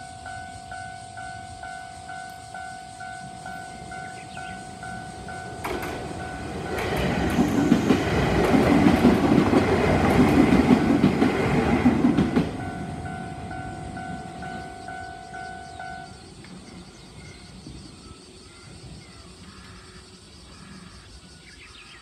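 A railway level crossing's electronic warning bells ring in a steady repeating ding-ding while an Izu Kyuko electric train passes through the crossing. The train is loudest from about six to twelve seconds in, well above the bells, and the bells stop about sixteen seconds in.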